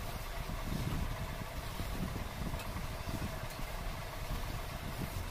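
Steady low rumble of background noise, like a motor running, with faint soft clicks from eating rice by hand and chewing.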